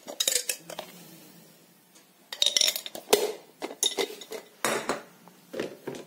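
Glass coffee-maker carafe and the spoon packed inside it being handled, giving a run of sharp clinks and knocks with a quiet spell about a second in.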